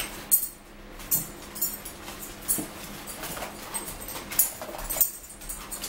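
McDonald's Filet-O-Fish cardboard boxes being opened and handled, giving a run of sharp crackles and clicks, the loudest about a third of a second in.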